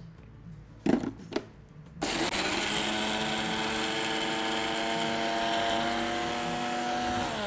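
Preethi mixer grinder with a small jar grinding roasted spices (pepper, cumin, dried chillies, curry leaves, asafoetida) into a coarse, oily powder. Two clicks come first; about two seconds in the motor starts and runs at a steady whine. Near the end it is switched off and winds down in pitch.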